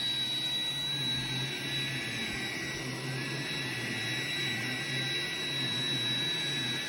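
Roomba robot vacuum running: a steady motor hum with a high, even whine from its fan.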